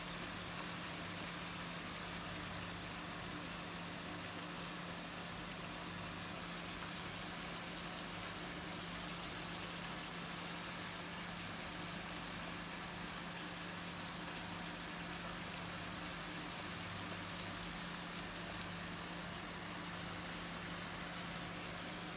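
A steady hum with a constant hiss, unchanging throughout, like a running motor or appliance.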